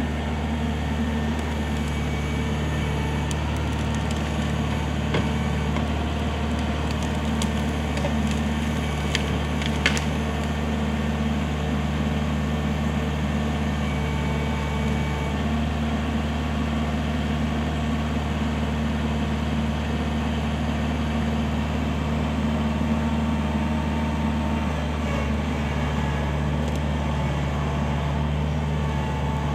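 Kubota L4400 tractor's four-cylinder diesel engine running at a steady speed, with a few short clicks or knocks about 5 to 10 seconds in.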